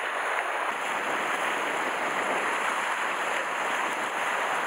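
Sea surf washing against shore rocks, a steady hiss.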